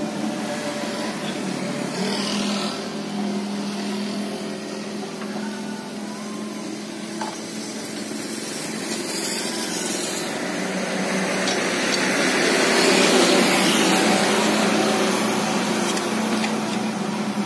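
A small engine running steadily, getting louder past the middle.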